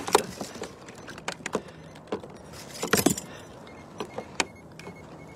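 Crabs being handled in a small boat: irregular clicks, taps and knocks of shell and legs against hands and hard gear, with the loudest clatter right at the start and again about three seconds in.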